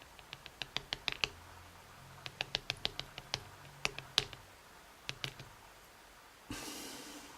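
Small metal lock pins and springs from a Schlage Everest cylinder clicking in quick runs of light ticks as they are taken out. Near the end there is a brief rustle of about a second.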